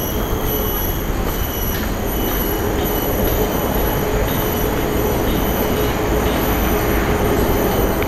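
Steady, shrill high drone of cicadas in the forest canopy over a steady low rumble of wind and handling noise on a hand-held camera's microphone.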